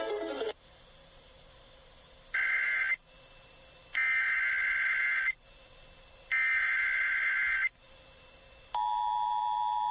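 Emergency Alert System alert starting: three bursts of the digital SAME header data tones, the first one shorter, then from about nine seconds in the steady two-tone EAS attention signal. Together they announce an incoming emergency alert.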